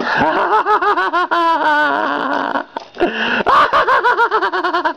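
A man laughing in quick high-pitched bursts, in two runs with a short break about two and a half seconds in.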